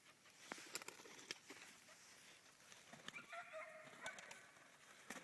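Near silence with faint scattered clicks of rustling. About three seconds in comes one faint pitched animal call lasting about a second.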